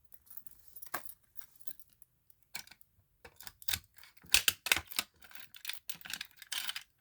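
Irregular light clicks and small rattles of hard objects being handled, sparse at first and coming thicker from about three and a half seconds in.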